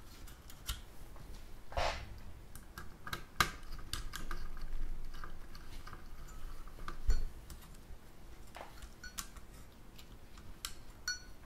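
Small screwdriver clicking and scraping against the screws that hold the fan onto a graphics card's heatsink, with scattered light taps, a duller knock about seven seconds in and a few faint metallic pings near the end.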